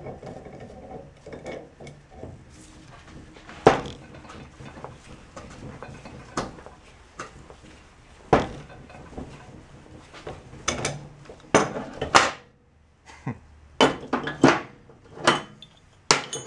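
Metal clanks and knocks from a three-jaw puller and the parts of a rusty Toyota Tundra rear differential carrier being worked apart on the bench. One loud knock about four seconds in, then a run of sharp clanks, several close together near the end.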